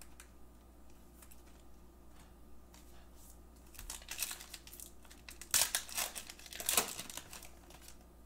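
Foil wrapper of a trading-card pack crinkling and tearing as it is opened, in a cluster of crackly rustles about four to seven seconds in, loudest near the end of the cluster.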